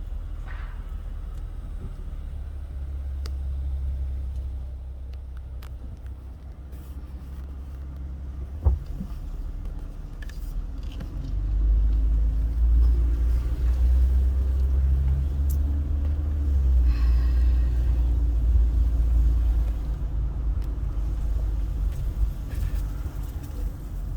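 Car driving slowly, a steady low rumble of engine and road noise that grows louder about halfway through, with one sharp thump about a third of the way in.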